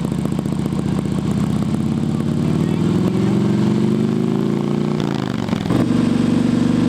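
A vehicle's engine revving, its pitch climbing slowly for about five seconds, then a brief break and a steady held rev at a higher speed, as when an engine is held at a set RPM for a sound-level reading.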